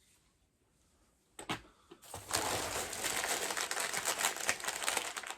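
Crinkling of mystery pin blind-bag packaging being handled: a single click about a second and a half in, then dense continuous crinkling from about two seconds on.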